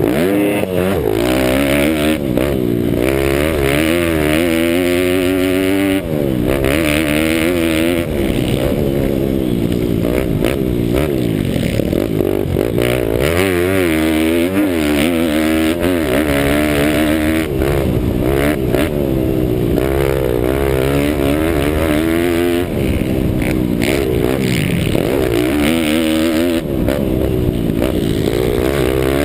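Pit bike engine revving hard during a motocross lap, heard from a helmet camera. Its pitch climbs and drops again and again as the rider opens and closes the throttle, with bigger drops around 6 and 13 seconds in and again near the end. Wind rush and clatter sit underneath.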